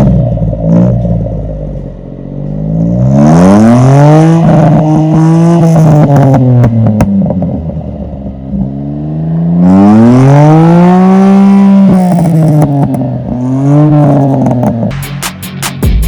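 Daihatsu Cuore's three-cylinder engine revved through an aftermarket HKS exhaust muffler: three free revs, the note rising, holding and falling each time.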